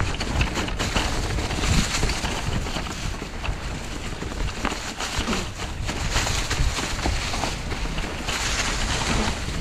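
Wind rushing on the microphone and tyres running over a leaf-covered trail, with a constant rattle of small knocks as an e-mountain bike rides downhill.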